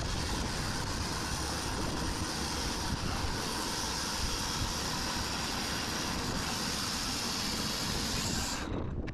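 Sawmill cutting through an ash log: a loud, steady sawing noise, strongest at high pitch, over the machine's lower running sound. The high cutting noise stops suddenly near the end while the lower running sound carries on.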